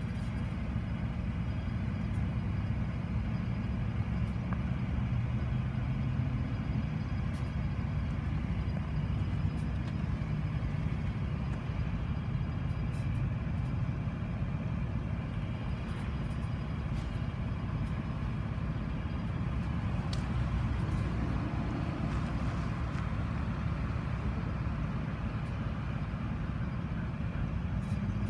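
Diesel locomotives idling on a stationary CSX train: a steady low engine rumble with no change in pace.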